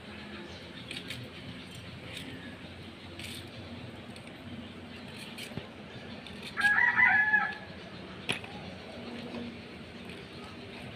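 A rooster crows once, a call of about a second a little past halfway through. A few sharp clicks and snaps sound here and there around it.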